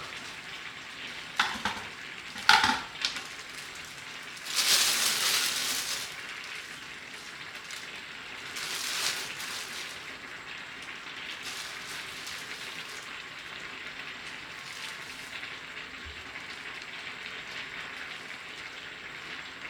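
Kitchen food-prep sounds: a few sharp knocks of utensils in the first three seconds, then two rustling, scraping passes of food being stirred or moved, about five and nine seconds in, over a steady low hiss.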